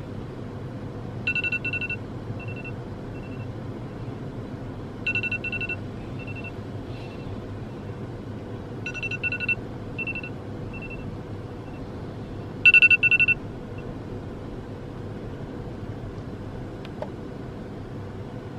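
Electronic wake-up alarm beeping: four bursts about four seconds apart, each a quick run of high beeps trailing into a few fainter ones, the last burst the loudest. A steady low hum runs underneath.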